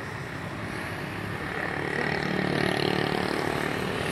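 Motor scooter traffic running past in a dense stream, its engine and tyre noise swelling over the first three seconds as the wave of scooters comes closer.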